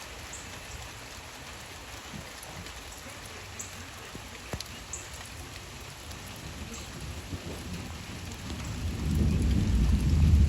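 Steady rain falling, with a few sharp drips. About nine seconds in, a low rumble of thunder builds and grows louder.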